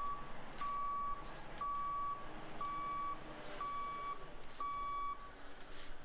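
Vehicle backup alarm beeping at an even one beep per second, each beep a single steady tone about half a second long. The beeping stops about five seconds in.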